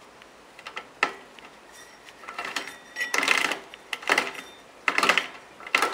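Motorized bicycle's misaligned drive chain clinking and rattling against its sprocket as it is turned. The rattle comes in short bursts about once a second, louder in the second half.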